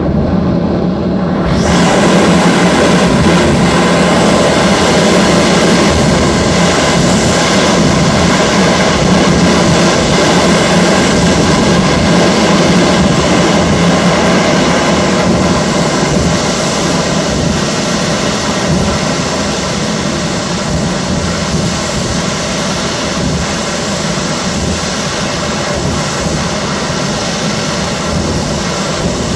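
Green Mamba jet car's jet engine running stationary with afterburner lit, a loud, steady roar blasting flame. It grows louder and harsher about a second and a half in.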